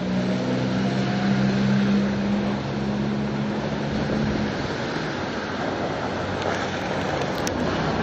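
Cars driving through a slushy, snow-covered intersection: a steady engine hum that fades out about halfway through, over a constant wash of road and wind noise, heard muffled through a camera wrapped in tape.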